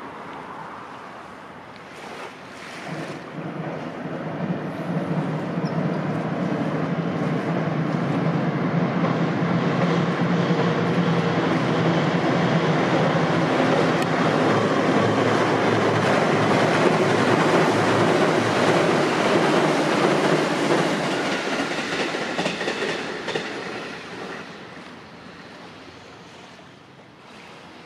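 JR Central 211-series electric train running across a steel girder railway bridge, with a low steady drone and wheels clacking over the rails. It builds up a few seconds in, holds loud for most of the passage, and dies away near the end.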